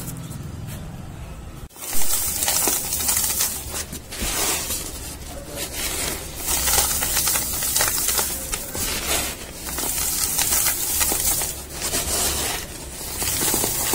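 Dry, dusty cardboard crushed and crumpled by hand in dense crackling crunches. There is a brief lull, then a sudden loud crunch about two seconds in, and the crunching goes on in surges.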